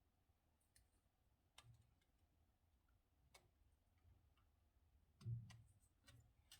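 Near silence with a few faint scattered clicks and one soft low thump about five seconds in: small parts and tools being handled while bolt holes are checked.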